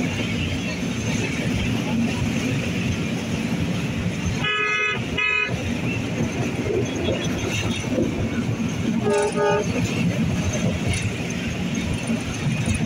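Steady rumble of traffic and travel noise, with vehicle horns honking: two short blasts about four and a half seconds in, and a different horn near nine seconds.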